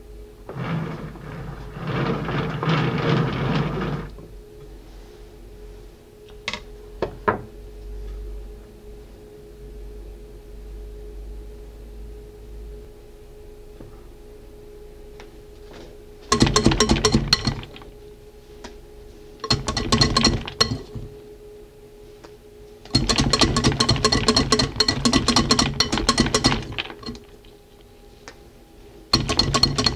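A metal offset spatula scrapes whipped cream across a sponge cake layer. Later come several bursts of rapid metal-on-metal scraping, the last one the longest, as the cream is worked in a metal bowl. A steady low hum runs between them.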